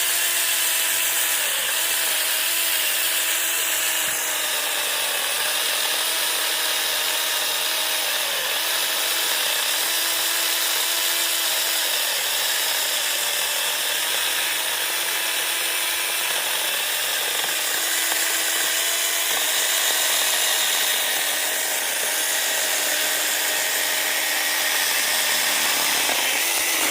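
Mini chainsaw running steadily while cutting through jurema wood, its motor pitch dipping briefly now and then as the chain bites under load, over the rasp of the chain in the wood.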